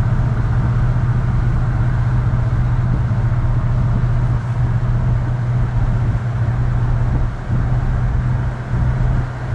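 A 1966 Ford F100 pickup's 302 (5.0-litre) V8 cruising at steady speed, heard from inside the cab as a steady low drone with road noise. The level dips briefly a couple of times near the end.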